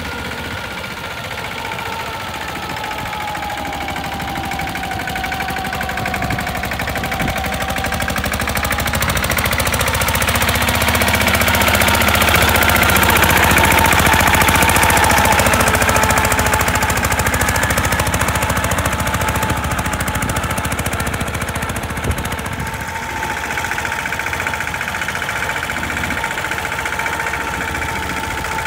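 Mahindra Yuvraj 215 mini tractor's single-cylinder diesel engine running under load as it pulls its cage wheels through flooded paddy mud while puddling. It grows louder as the tractor comes close around the middle, then fades again.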